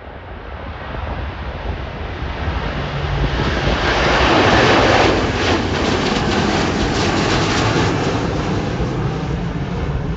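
Jet airliner's engines passing close by, the noise swelling to a peak about four seconds in and staying loud.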